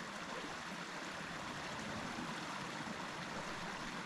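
Steady rush of running water, with no change over the few seconds.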